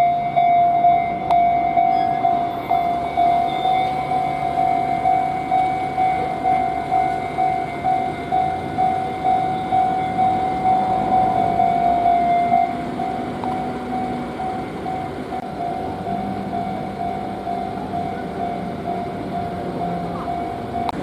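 Japanese level-crossing warning bell ringing its repeated electronic clang, about two strikes a second, growing quieter about twelve seconds in but ringing on. A train's running rumble sounds underneath.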